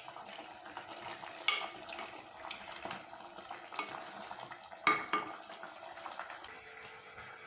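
Crab gravy simmering in an earthenware pot over a gas flame, a steady hiss, with a wooden spatula stirring and knocking sharply against the pot several times, loudest about five seconds in.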